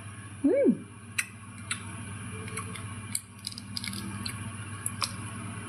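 Wet, squishy chewing and scattered small mouth clicks of someone eating juicy red pomelo flesh. A brief hum that rises then falls comes about half a second in.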